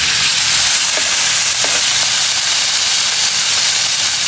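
Marinated meat sizzling steadily on a hot, oiled grill pan, a loud continuous hiss of frying as the pieces are laid on.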